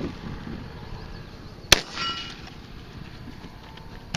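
A single shot from a magazine-fed shotgun, with a short ringing right after it. A smaller sharp click comes near the end.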